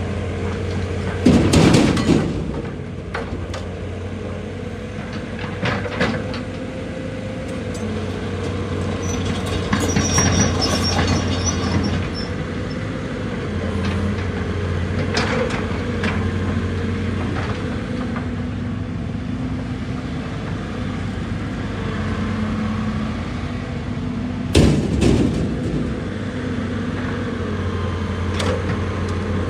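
Excavator's diesel engine running steadily, with several sharp knocks and scrapes of rock against the bucket; the loudest come about a second in and near the end.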